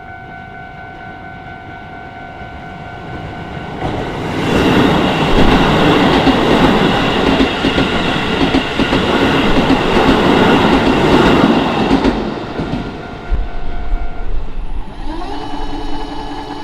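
Japanese level-crossing warning bell ringing with steady electronic tones while a Keisei Main Line train runs over the crossing for about eight seconds, its wheels clattering over the rail joints. The bell stops about two seconds after the train has gone.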